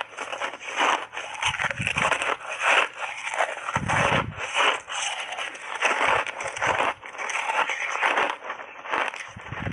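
Close-miked crunching of refrozen ice chunks coated in matcha tea and milk powder, bitten and chewed in big mouthfuls: an uneven, unbroken run of sharp cracks and crunches.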